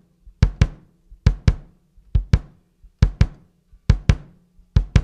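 Kick drum struck in double taps, two quick hits a fraction of a second apart, about once a second, six pairs in all.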